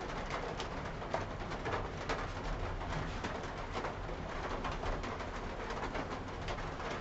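Whiteboard eraser rubbing across the board in repeated short strokes, wiping off marker writing.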